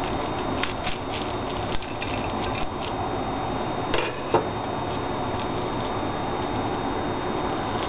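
Knife cutting into a batter-fried shrimp on a plate: scattered small clicks and crunches, then two sharper clinks about four seconds in, over a steady background hiss.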